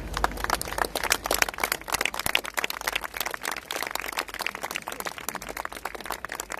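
A large crowd applauding: many hands clapping in a dense, irregular patter.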